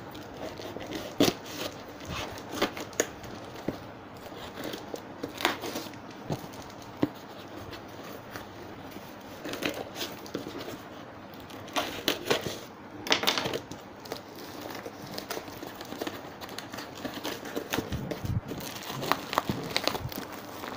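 A tightly packed parcel being cut and torn open by hand: plastic wrapping and bubble wrap crinkling and tearing, with irregular crackles and sharp rustles.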